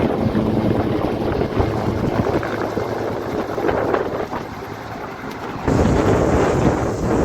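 Continuous rumbling helicopter rotor and engine noise with wind buffeting the microphone. About five and a half seconds in, the sound cuts abruptly to a louder windy rumble.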